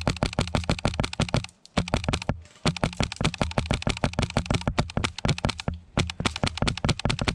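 Custom Polarstar Kythera HPA airsoft rifle firing on full auto: a rapid string of sharp shots in several bursts, broken by four short pauses.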